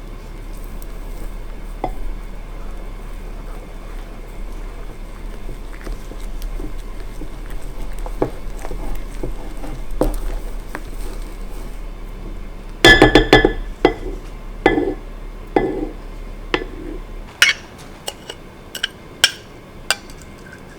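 Close-miked handling sounds of slime-making: soft rustling and scraping, then from a little past halfway a run of sharp clinks and taps as a utensil knocks against a bowl.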